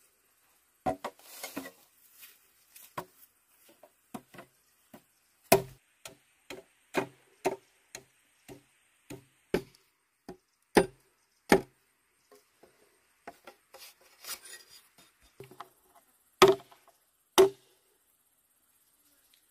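A series of sharp knocks at an uneven pace of one or two a second, the loudest two near the end, after which they stop.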